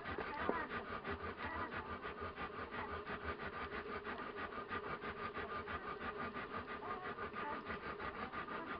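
One-week-old komondor puppies suckling at their mother's teats: a quick, steady rhythm of wet sucking and smacking several times a second, with a faint squeak now and then.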